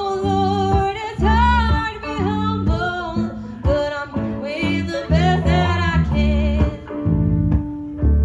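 Live country band playing an instrumental break: guitars and bass keep a steady rhythm under a gliding, wavering lead melody.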